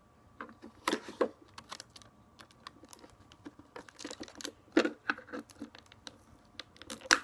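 Paper and scotch tape being handled while a paper craft is taped together: irregular crinkles and sharp clicks, a few louder ones about a second in, near the middle and near the end.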